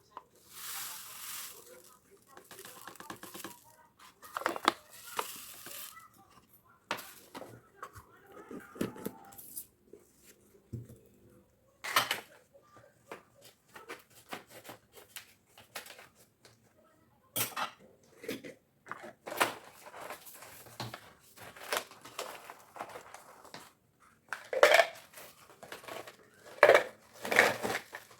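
Kitchen containers and utensils being handled: irregular clinks, knocks and taps, with short rustling or scraping noises in between. The loudest knocks come near the end.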